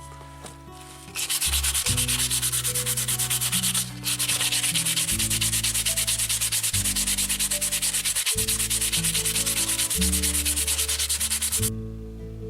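Linden wood being sanded: a fast, even rasping, about eight strokes a second. It starts about a second in and stops shortly before the end.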